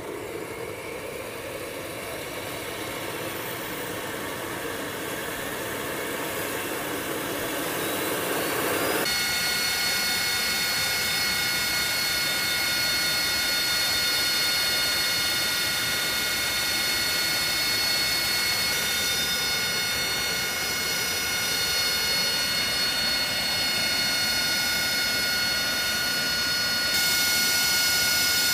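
AV-8B Harrier II's Rolls-Royce Pegasus turbofan spooling up with a rising whine, then running steadily with a high whine of several steady tones, a little louder near the end.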